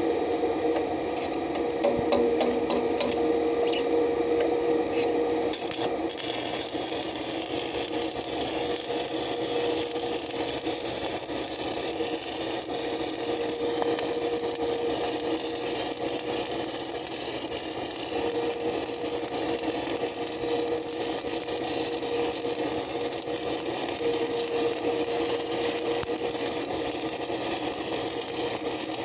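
Stick welding arc crackling and hissing steadily over a steady hum, the crackle growing fuller and more even about six seconds in.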